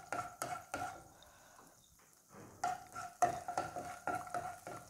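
A spatula stirring and scraping chopped garlic around a nonstick frying pan of melted butter, with the garlic frying. The short strokes pause about a second in and pick up again, quicker, at about two and a half seconds.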